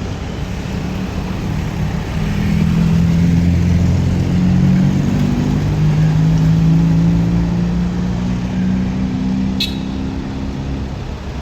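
Mitsubishi L300 van's diesel engine revved up about two seconds in and held at raised speed for several seconds, then easing back down, as it is checked for smoky exhaust.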